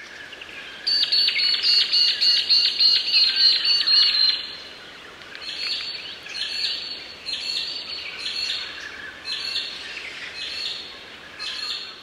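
Magpie-lark calling: a fast run of sharp, ringing notes for about three seconds, then a repeated call about once a second.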